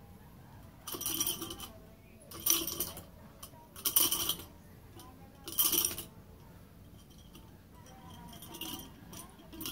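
Stainless steel nunchaku being swung, the metal chain and handles jangling and clinking in four short bursts about a second and a half apart, then fainter rattles near the end.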